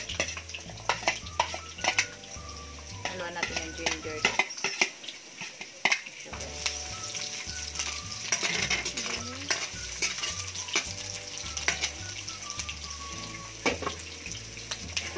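Garlic, onion and ginger sizzling in hot oil in a pan, with a metal spoon stirring them and clicking and scraping against the pan and plate.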